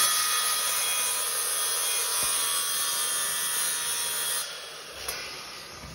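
DeWalt circular saw running with a soapstone stick held against its spinning blade, a steady high hissing grind as the soapstone is sharpened. About four and a half seconds in the grinding stops and the sound fades away.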